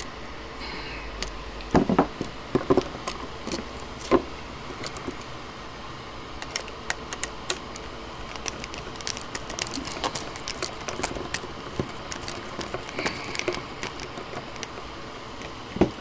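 Hand tools working a three-way light switch: pliers and a screwdriver clicking, scraping and tapping on the switch's metal terminal screw and wire as the wire loop is fastened. There are a few louder knocks in the first four seconds, all over a steady low hum.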